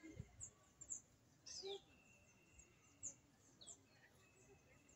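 Faint birdsong: short, high chirps that fall in pitch, repeating every half second or so, with a couple of thin held whistles between them.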